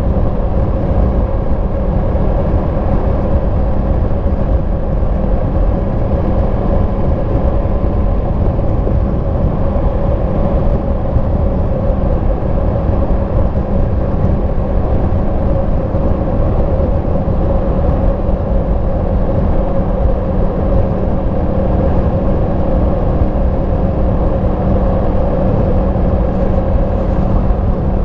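Yamaha MT-10 SP motorcycle's crossplane inline-four engine on its stock exhaust, running at a steady speed while the bike cruises. The engine note holds even with no revving, over a constant rushing noise.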